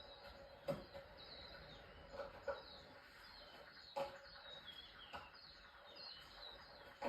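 Stones knocking against a tough ostrich eggshell as an Egyptian vulture hammers at it: sharp single knocks at uneven intervals, about six in all. Small birds chirp steadily in the background.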